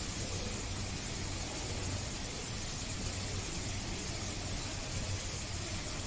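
Steady hiss with a low hum underneath, even throughout, with no distinct events.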